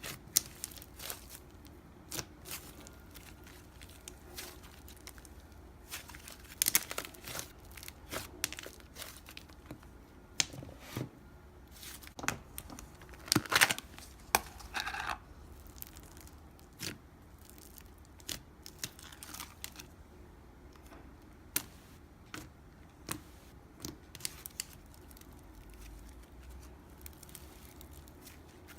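Handmade slime being played with by hand: irregular sharp clicks, pops and short crinkly crackles, busiest about halfway through.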